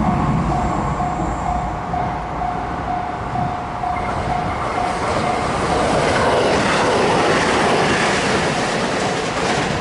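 Level crossing warning bell ringing about twice a second while a train runs through the crossing; the train's running and wheel noise swells from about six seconds in and drowns out the bell.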